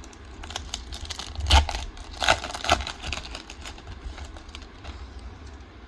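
Foil wrapper of a Japanese Pokémon booster pack crinkling and crackling as it is torn open and handled, with a few sharper crackles between about one and a half and three seconds in.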